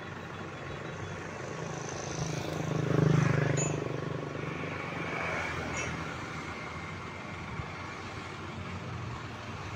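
An engine running steadily, growing louder about three seconds in and then easing off again.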